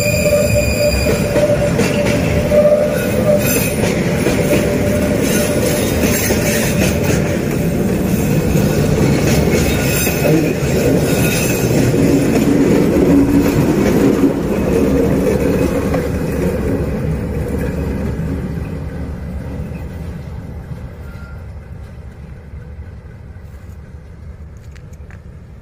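Train hauled by a D19E diesel-electric locomotive rolling past, with a high wheel squeal in the first few seconds. The noise then fades steadily over the last ten seconds as the train moves away.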